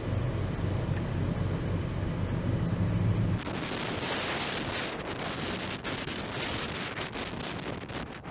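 Hurricane-force wind blasting the microphone. A deep rumble for about three seconds, then, after a cut, a brighter gusting hiss that rises and falls.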